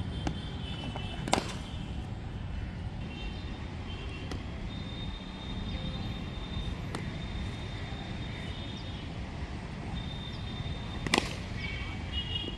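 Two sharp cracks of a cricket bat striking the ball, one about a second in and a louder one near the end, over a steady low background rumble.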